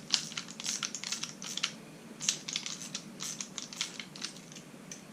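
Irregular light clicks and taps of hand tools and small parts being handled while the power feed's cam pin is released, thinning out near the end.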